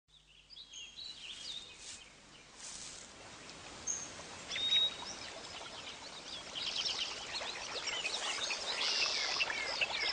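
Birds chirping and twittering, sparse at first and growing into a dense chorus of many short quick calls about halfway through, with one clear whistled note near the middle.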